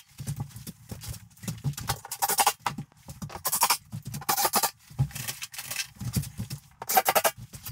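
Cordless drill-driver driving screws through ceiling panels into wooden battens, in about ten short, rattling bursts.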